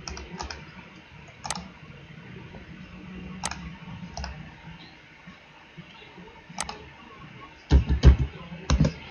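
Computer mouse clicks, single and scattered a second or more apart, over a faint steady hum. Near the end comes a quick cluster of much louder knocks.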